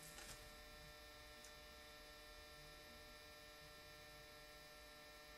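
Near silence: a faint steady electrical hum, with one brief faint rustle just after the start.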